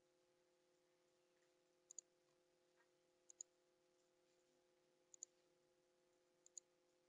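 Computer mouse button clicked four times, each click a quick press-and-release pair, over a faint steady hum.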